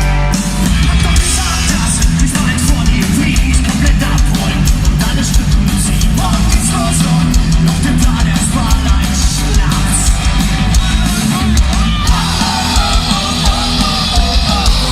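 Live punk rock band playing loud and distorted, with a heavy bass and drum beat and shouted vocals.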